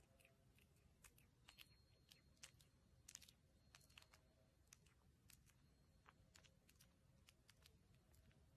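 Very faint, irregular wet clicking, a few clicks a second: an adult cat licking a kitten's face and head.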